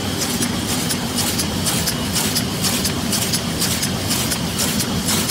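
Automatic vertical laminating machine running steadily as printed sheets feed through. A dense mechanical whir carries a regular clatter of a few clicks a second.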